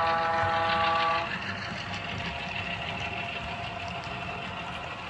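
Model diesel locomotive's multi-note horn sounding a chord, cut off about a second in. After it, the engine sound and the running of the train on the track go on steadily.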